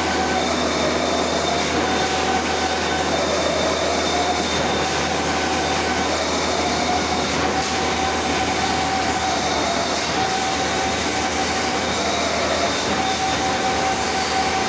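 Automatic wire straightening and cutting machine running, with a steady high whine that sags briefly in pitch every few seconds over dense mechanical noise.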